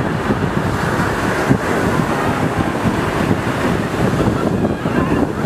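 Wind buffeting the microphone in a steady low rumble, over the wash of ocean surf.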